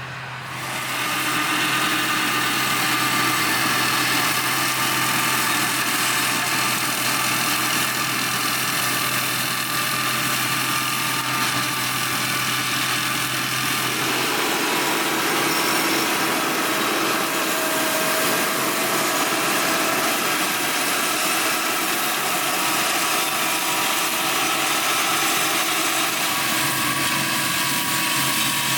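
Tractor-driven flail mower running: a loud, steady mechanical whir over engine hum, swelling up about a second in. A low hum drops out about halfway through while the rest carries on evenly.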